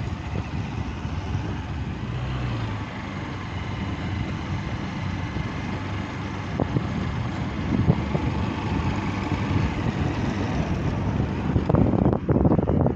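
Hero Xtreme 160R motorcycle's single-cylinder engine running steadily while riding, under a constant rush of road noise. Choppy gusts of wind hit the microphone near the end.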